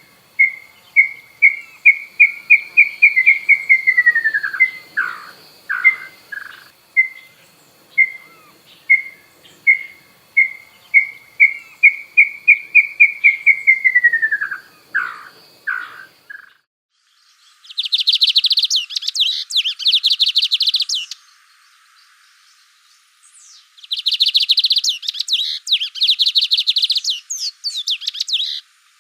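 Birdsong: a series of clear whistled notes that speed up and then slide down in pitch at the end, sung twice. About two-thirds of the way in it gives way to a different, higher, rapid buzzing trill, in two bursts of about three seconds each.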